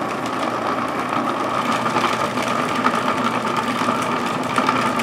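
Food processor motor running steadily, its blade mixing flour and water into crumbly noodle dough, with a steady whine over the motor hum.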